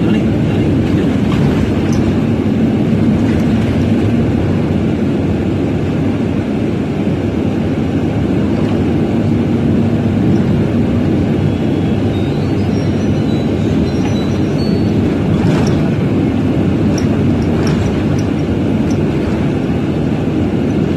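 Steady engine and road rumble heard from inside a moving bus, a constant low drone without pauses.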